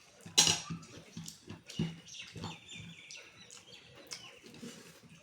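Eating sounds: repeated short, soft sounds of chewing and of a hand mixing rice and dal. A bird chirps in the background from about two seconds in.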